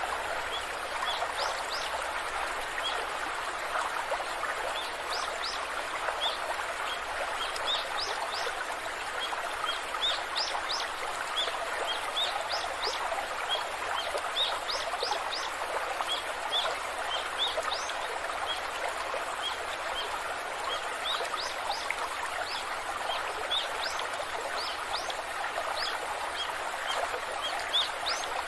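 Steady rush of a waterfall, with small birds chirping over it in quick, short high notes.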